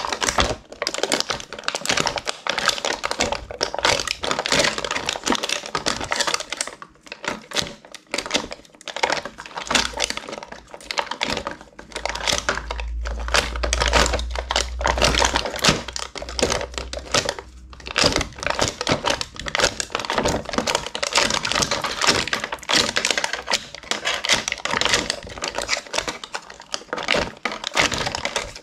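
Clear slime being squished and kneaded by hand, giving a continuous run of fast, irregular wet clicks, with a low rumble of handling in the middle.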